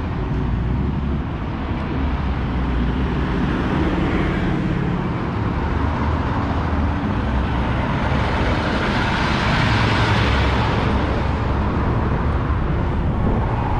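Road traffic running steadily, with a vehicle passing close by that swells to its loudest about ten seconds in and then fades.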